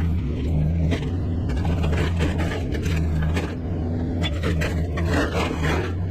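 An engine running steadily at one pitch, with repeated scrapes and knocks over it.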